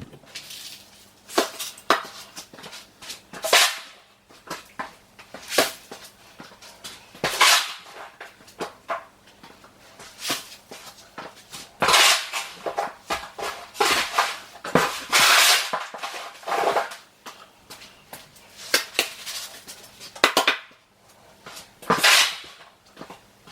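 Freshly mixed mortar being scooped and spread by hand tool: irregular gritty scrapes and clatters, with a run of longer scrapes about halfway through.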